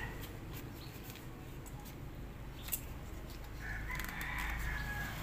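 A rooster crowing in the background: a drawn-out call begins about three and a half seconds in, over a low steady hum, with a single small click shortly before it.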